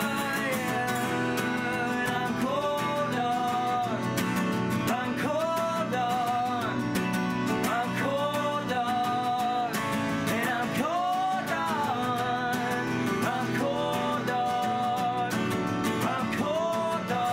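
Two acoustic guitars strummed steadily while two male voices sing along.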